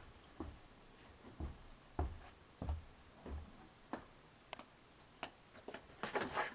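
Footsteps coming down a carpeted staircase: a slow, even run of dull thuds, a little under one a second, with a few lighter clicks among them.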